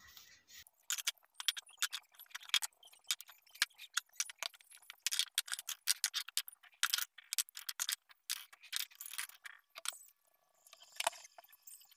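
Ceramic mugs and glassware being handled and moved around on a wooden cabinet shelf: a rapid, irregular run of light clicks and clinks, with a short pause near the end.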